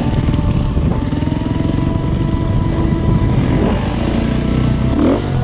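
Enduro dirt bike engine running steadily under way, heard close up on board, with a rapid, even firing beat.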